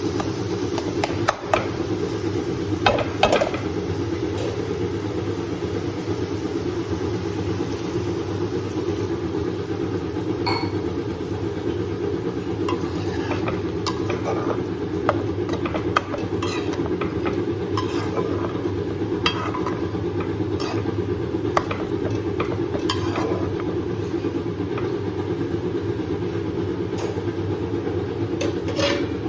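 A steady low hum, with occasional light clinks and scrapes of a utensil against a cooking pot as food is stirred.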